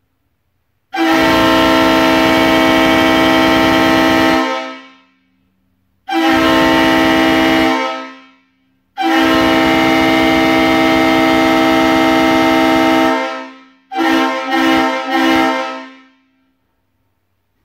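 Leslie RS3L three-chime air horn sounding a steady chord in blasts: a long one, a short one, another long one, then a last blast broken into three quick pulses.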